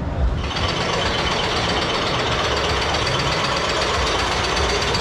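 Roller coaster lift-hill chain running with a fast, steady mechanical rattle that starts about half a second in, as the train is hauled up the lift hill.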